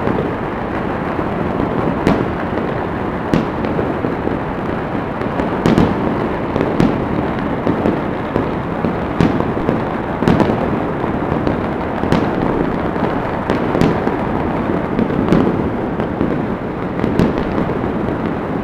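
New Year fireworks and firecrackers going off in many places across a city at once: a dense, unbroken crackle with frequent sharper bangs scattered through it.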